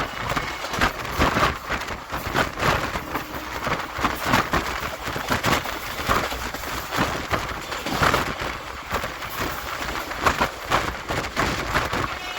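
Passenger coach of the 22187 Intercity Express running at speed: irregular clatter and knocks of wheels on rail over a steady rushing noise.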